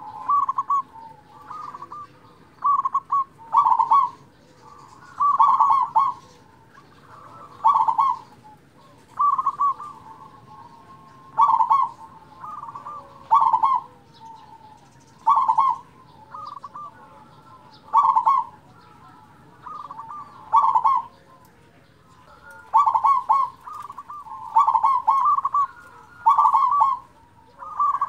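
Local-strain zebra dove (perkutut) singing its loud cooing song: short rolling coo phrases repeated one every second or two, some coming in quick pairs.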